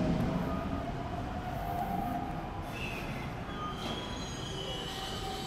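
Toei 5300-series subway train rolling slowly along the platform: steady running noise with thin whining tones from its drive gear, and a short squeal about halfway through.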